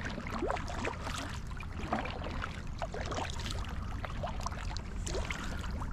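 Boat moving on a river: water splashing and trickling along the hull over a steady low rumble.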